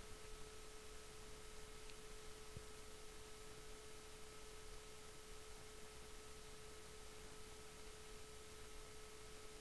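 Near silence: a faint, steady single-pitch hum with a fainter higher tone over low hiss, from the recording setup.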